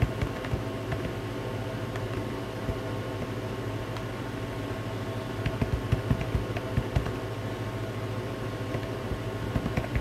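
Irregular key taps of typing on a fully flexible rubber keyboard, coming in a quicker cluster a little past the middle, over a steady low hum.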